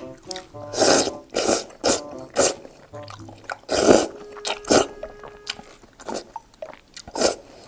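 Mouth noises of eating with chopsticks from a cup bowl: about nine short, irregular, fairly loud slurps with chewing in between. Quiet background music runs underneath.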